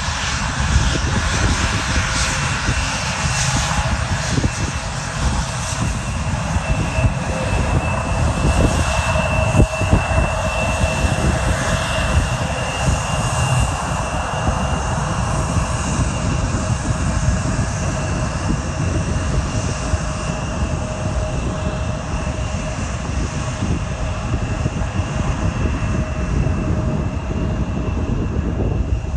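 Airliner engines running: a loud, steady rush of engine noise with two constant whining tones through it.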